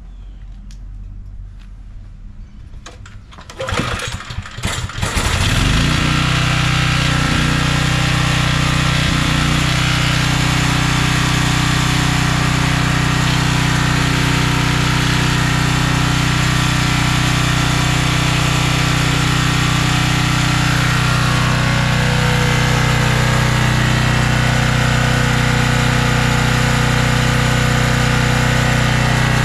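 Portable generator engine being cranked over, catching about five seconds in, then running steadily at a constant speed.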